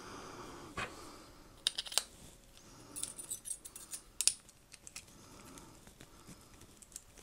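Light plastic clicks, ticks and scrapes of a stylus pen being handled as its battery goes in and its screw-threaded barrel is twisted shut.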